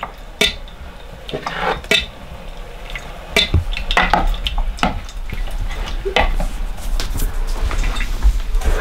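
Hand-cranked Victorio food strainer being turned, its auger squishing hot cooked nannyberries through the screen with irregular clicks, knocks and squelches. The berries are pretty hard to run through.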